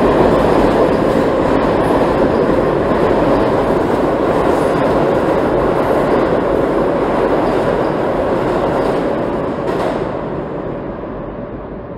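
New York City Subway train running through an underground station at speed: a loud, steady rumble and rattle of wheels on rails with a steady tone over it. It fades away over the last two seconds.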